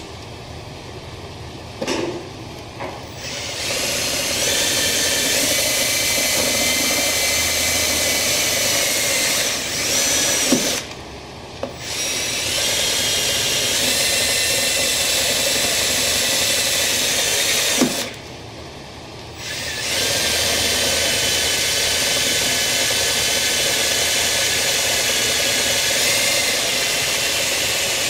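Cordless drill with a 5/16-inch bit enlarging 1/8-inch pilot holes in a steel fender. There is a short blip about two seconds in, then three steady runs of several seconds each, with short pauses between them.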